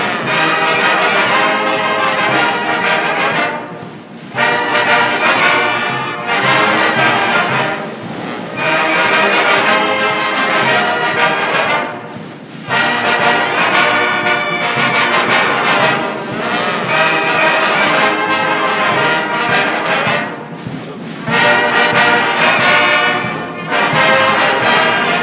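Brass band playing a hymn in phrases about four seconds long, with a short break between each phrase.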